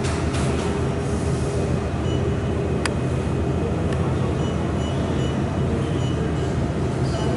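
Steady low hum and rumble of industrial machinery running, with a single sharp click about three seconds in.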